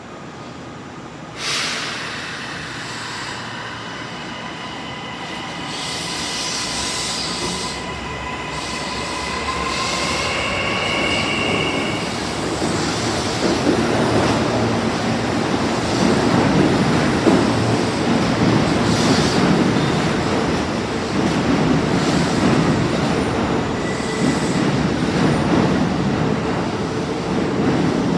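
Kintetsu 80000 series 'Hinotori' electric train pulling out. A sudden start about a second and a half in brings steady high whining tones, which rise in pitch near the middle as the train gathers speed, then give way to a growing rumble and screech of wheels on rail.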